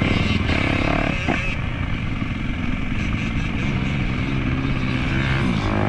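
Yamaha YZ250F four-stroke single-cylinder dirt bike engine running steadily at idle.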